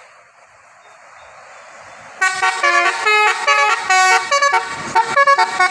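Bus 'telolet' multi-tone musical air horn (Basuri type) playing a quick tune of stepped notes. It starts about two seconds in, after low steady background noise, and is loud.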